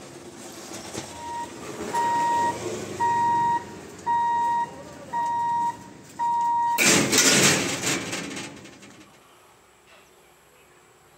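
Electric level-crossing gate warning buzzer beeping, about once a second, six times, while the boom barrier lowers, warning road users that the gate is closing for a train. It stops abruptly and is followed by a loud rushing noise for about two seconds that then fades.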